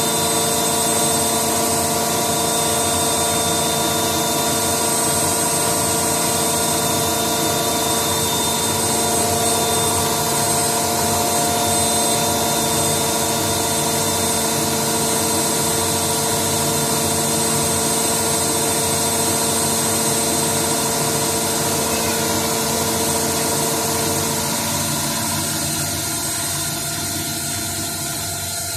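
Indesit washing machine running, a steady motor hum with a whine of several tones; the strongest tone cuts off about 24 seconds in and the sound turns quieter.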